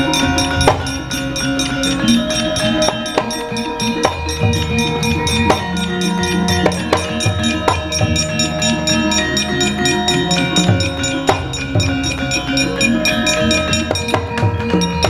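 Javanese gamelan music: many ringing metal tones held over a low drum, with sharp clacks every second or so.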